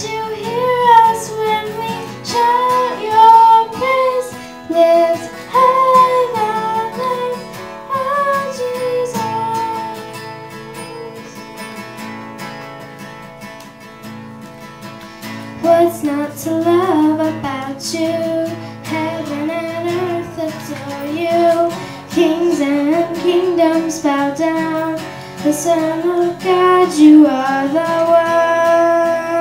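A young girl singing into a microphone, accompanied by an acoustic guitar. The voice drops back for a quieter stretch in the middle, then the singing picks up again.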